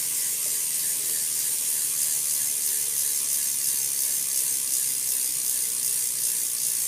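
BMX rear hub with a 9-tooth driver freewheeling as the back wheel spins, its pawls clicking so fast they blur into a steady, high-pitched buzzing rattle.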